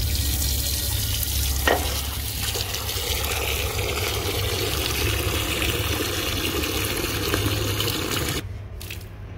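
Water pouring steadily into a potted plant's soil, stopping suddenly about eight seconds in.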